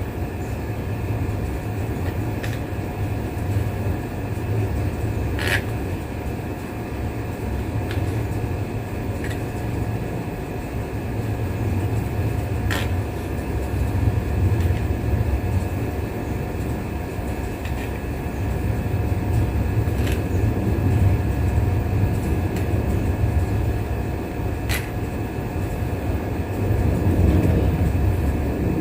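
Electric grinder running steadily against the cut edges of galvanized iron sheet, taking off the sharp edges, with its load rising and falling and a few sharp clicks.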